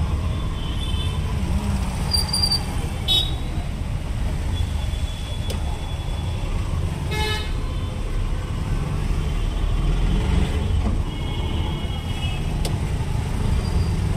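Busy street traffic: a steady low engine rumble with vehicle horns tooting several times, the clearest about seven seconds in.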